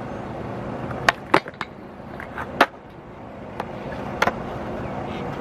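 Skateboard wheels rolling on concrete, with several sharp clacks of the board against the ground.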